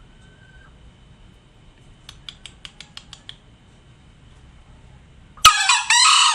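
Green junglefowl crowing once near the end: a short, harsh, two-part call. Before it, a quick run of about eight faint clicks.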